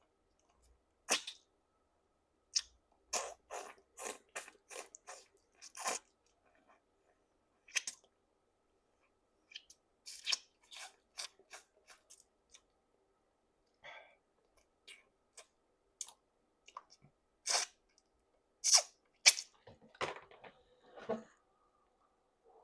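A person chewing food with wet mouth smacks and clicks, coming at irregular intervals.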